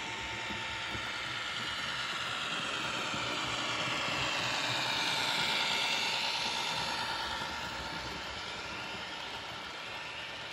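H0-scale model steel train hauled by a model CFL G1206 diesel locomotive, running past. Its running noise swells to a peak about halfway through and then fades, with a faint steady whine underneath.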